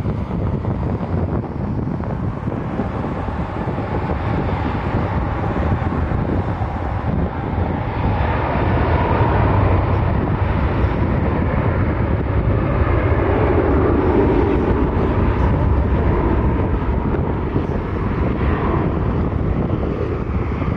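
Gusty wind buffeting the microphone over the steady rumble of jet airliner engines, which grows louder past the halfway point.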